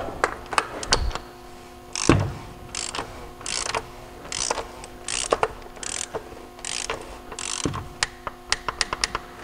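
Torque wrench ratcheting as the oil filter housing cap is tightened to 25 Nm: a rasping ratchet stroke about every 0.7 s as the handle is swung back and forth, then a quicker run of sharp clicks near the end.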